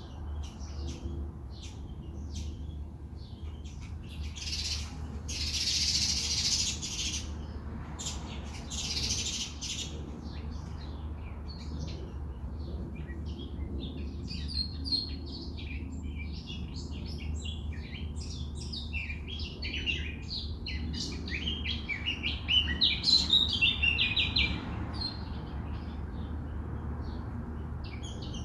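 Wild birds chirping and twittering in many short, overlapping calls, which grow denser and loudest near the end. Twice in the first third comes a brief burst of hiss, and a steady low hum runs underneath.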